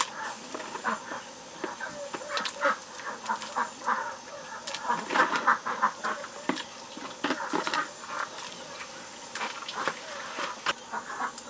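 Domestic poultry calling: many short, irregular clucks and calls overlapping one another.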